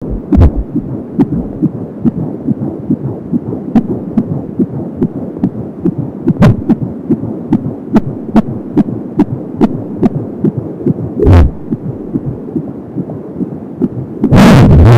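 Fetal heartbeat through an Angelsounds handheld fetal doppler: a fast, even pulsing beat of about 170 beats a minute. A loud rushing burst cuts in briefly about eleven seconds in and again, for longer, near the end.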